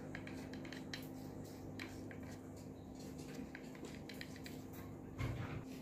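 Faint clicks and light rustling of hands handling a fishing rod's grip and reel seat, over a steady low hum, with a soft thump near the end.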